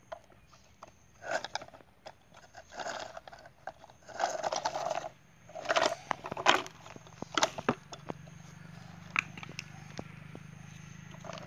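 Loose gravel and stone chips scraping and crunching as a plastic toy tractor is handled and pushed over them, in several short bursts with sharp clicks of stone on stone. A faint low hum sets in about two-thirds of the way through.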